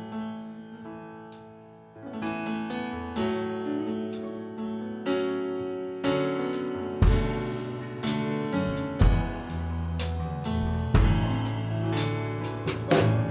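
Worship band playing an instrumental passage on piano or keyboard with guitar, with bass notes coming in about seven seconds in and the music growing fuller.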